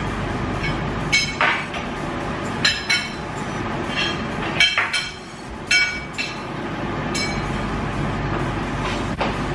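Metal cutlery clinking against dinner plates as a table is set, about ten sharp clinks in the first seven seconds, over a steady low hum.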